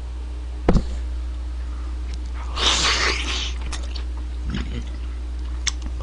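Close-miked mouth sounds of a man biting into and eating a piece of sauced fried chicken, with a short noisy slurp-like burst about midway and a few small wet clicks. A single sharp thump comes just under a second in, and a steady low hum runs underneath.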